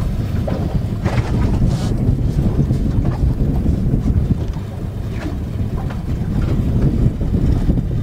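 Wind buffeting the microphone on a boat: a loud low rumble that swells and eases a little, with no voices.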